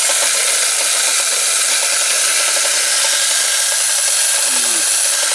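Clockwork motor of a Marx wind-up tin toy WW1 tank running, with its flint scraping on the spark wheel to throw sparks: a loud, steady, rasping whirr that starts abruptly.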